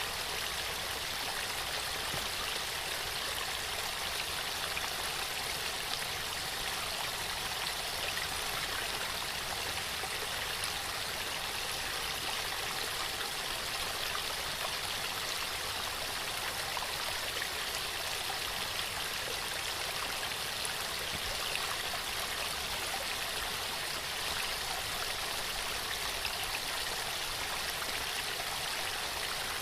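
Waterfall: water falling and rushing in a steady, even roar that does not change.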